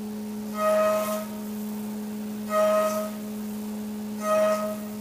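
Haas VF4SS CNC mill roughing aluminum with a carbide end mill: the spindle runs with a steady high hum, and three times the cutter rings out in a loud, singing tone for about half a second as it engages the material on each pass of the waveform toolpath.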